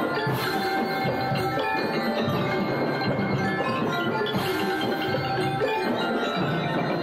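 Percussion music with many ringing metallic and wooden tones over drums, in a steady rhythm.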